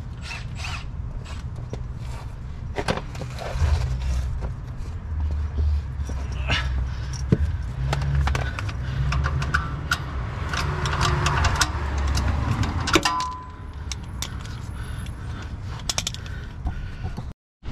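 Scattered metallic clinks, taps and knocks of hand tools working on a car's exhaust underneath, over a steady low rumble.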